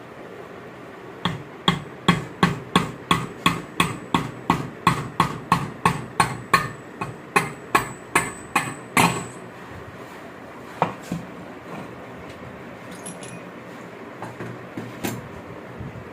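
Hammer striking metal in a steady run of about twenty blows, roughly three a second. The run stops after about eight seconds, and a few single blows follow.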